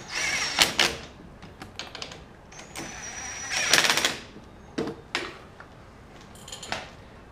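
Cordless drill running in two short bursts, driving the mounting bolt of a Wilwood brake caliper down over two thin shims: one burst of about a second at the start and a longer one of about a second and a half some three seconds in. A few light metal clicks follow.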